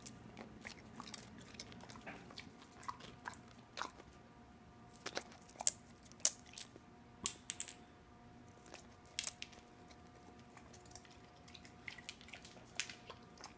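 Dog eating its food, now topped with cheese: irregular sharp clicks of chewing and biting, scattered with short pauses.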